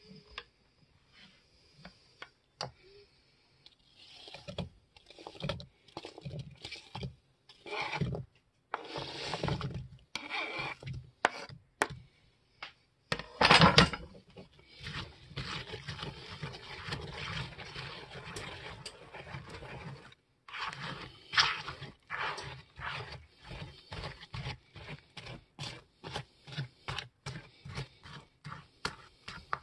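Wire whisk stirring cake batter in a plastic bowl, in irregular wet scrapes. About 13 seconds in, chopped apple pieces go into the batter with a louder burst. After that the chunky batter is stirred in steady strokes, about two a second.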